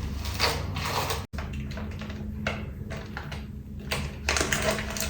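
Irregular clicks and rustles of small objects being handled, over a low steady hum.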